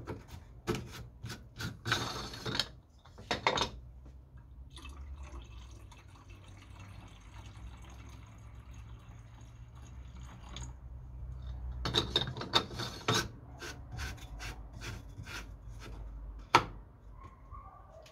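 Coolant poured from a plastic bottle into a car's plastic coolant expansion tank, a steady trickle lasting about six seconds. Before and after it come clicks and rattles of the tank's filler cap and the bottle being handled, with one sharp click near the end.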